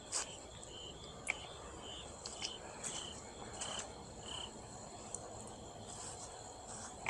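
Night chorus of calling insects or frogs: a faint repeated chirp about twice a second over a steady high-pitched buzz, with a few soft clicks.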